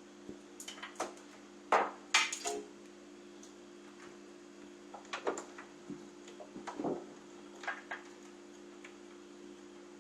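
Irregular clicks and knocks of cable connectors and parts being handled inside a computer case while cables are plugged into the motherboard, the loudest pair about two seconds in, over a steady low hum.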